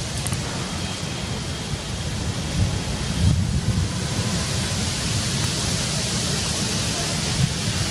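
Strong wind blowing across the camera microphone: a steady hiss with low buffeting rumbles, swelling in a stronger gust about three seconds in.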